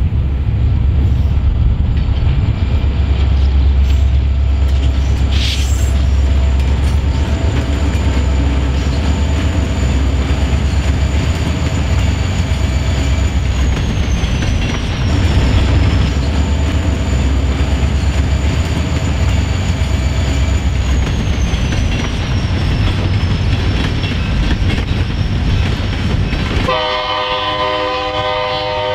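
Diesel locomotives led by an EMD GP30 rumbling steadily past, with the wheel-on-rail noise of empty grain hopper cars. Near the end a locomotive air horn sounds a sustained chord.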